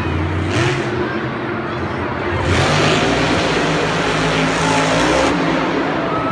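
Monster trucks' supercharged V8 engines running and revving, louder from about two and a half seconds in.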